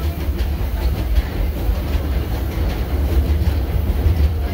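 Passenger car of a narrow-gauge train rumbling and clicking along the track, heard from aboard. A steady low rumble runs throughout, with scattered light clicks from the wheels.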